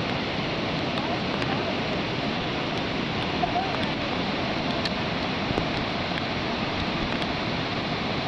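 Steady rush of flash floodwater, the swollen Whetstone Brook pouring over and across a washed-out road.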